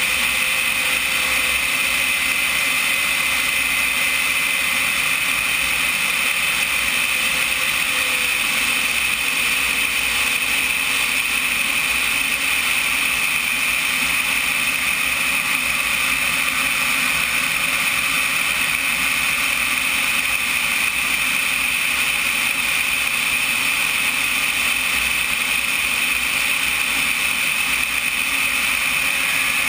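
Turbine engine of a CompARF Flash RC jet in flight, heard from on board the airframe: a steady high-pitched whine over constant wind rush, with a fainter tone that drifts slowly lower in pitch over the first half.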